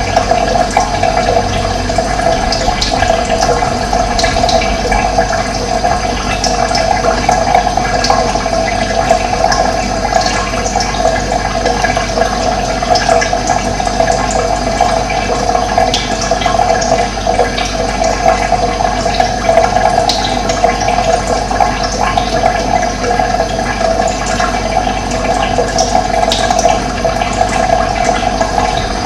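Running water in a steady, continuous rush, with brief high bird chirps scattered through it.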